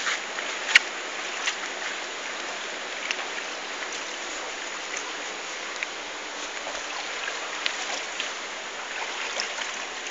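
Shallow river running over rocks: a steady rush of water, with a sharp click about a second in and a few lighter ticks scattered through it.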